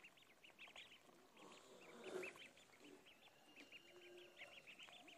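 A flock of ducklings peeping, many short high peeps overlapping at a few each second, faint.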